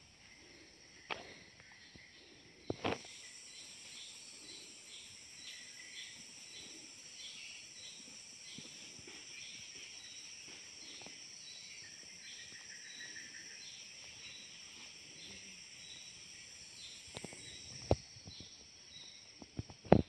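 Steady high-pitched chorus of insects, with a short chirp repeating about twice a second. A few sharp knocks stand out, the loudest about three seconds in.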